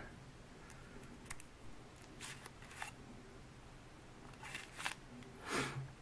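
Faint, scattered clicks and light scrapes from hands handling a hollow-handle survival knife and its screw-off end cap, with a louder scrape near the end.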